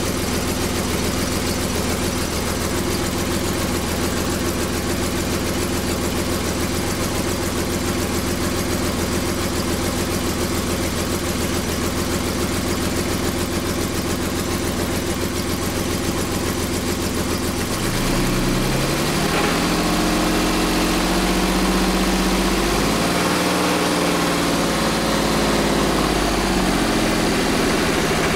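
Twin-turbocharged Jaguar V12 engine idling steadily under Megasquirt engine management, its ignition timing newly corrected. About two-thirds of the way through the sound changes and gets a little louder, with the engine note wavering up and down.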